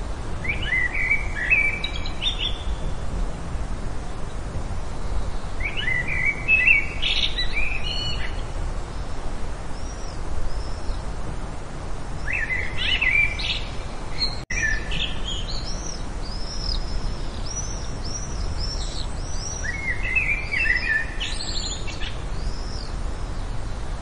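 Songbirds singing: four bursts of quick, warbling song phrases, each about two seconds long and spaced several seconds apart. From about ten seconds in, higher, short chirps repeat between the phrases. A steady low rushing noise runs underneath, and the sound cuts out for an instant near the middle.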